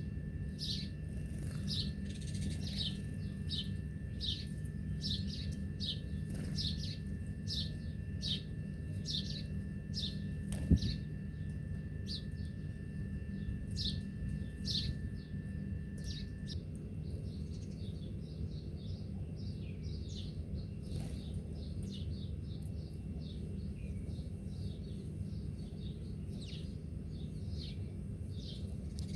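Small birds chirping: a steady series of short, sharp chirps, about two a second, through the first half, then fainter, scattered chirps. A steady low hum runs underneath, and a single sharp click comes about eleven seconds in.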